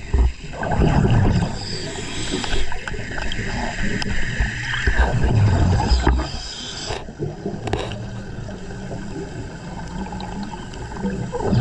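A diver breathing underwater through a regulator: hissing breaths in, with bubbling swells of exhaled air a few seconds apart.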